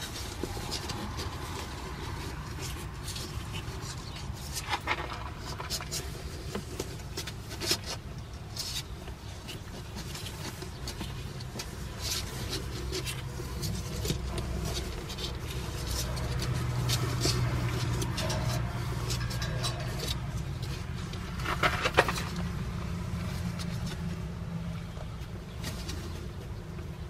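Newborn San'in Shiba puppies shuffling and scrabbling on cardboard: scattered small scratches and clicks, with a sharper clatter about four-fifths of the way through, over a steady low hum.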